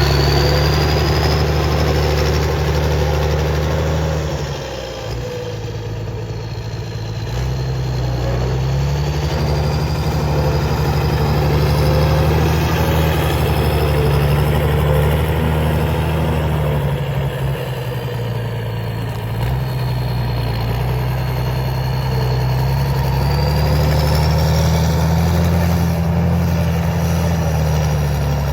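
CBT 1105 tractor with a Mercedes-Benz OM 366 six-cylinder diesel engine running hard at work. Its engine speed sags briefly twice, about five seconds in and again around eighteen seconds, and picks back up each time.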